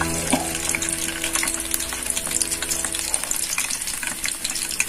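Battered paneer satay skewers frying in hot oil in an aluminium pan, with a steady crackling sizzle. A low steady hum sits underneath for the first three seconds or so, then stops.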